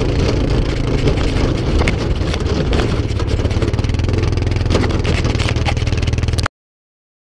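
ATV engine running steadily as it drives along, with frequent small knocks and rattles over the engine note; the sound cuts off abruptly near the end.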